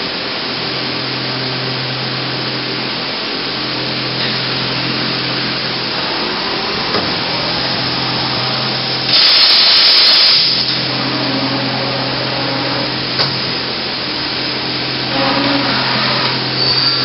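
Mazak VTC200C machining center running its Y axis back and forth, the telescoping steel way covers sliding and rubbing over a steady machine hum, with a louder rush lasting about a second and a half near the middle. The noise is put down to the way covers only, not the axis drive.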